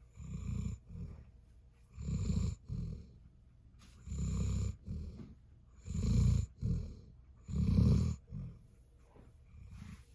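Jindo dog snoring in its sleep: five snores about two seconds apart, each a longer snore followed by a short second breath.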